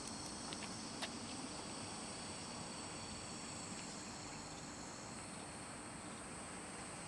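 Steady high chirring of insects, with a couple of faint ticks about half a second and one second in.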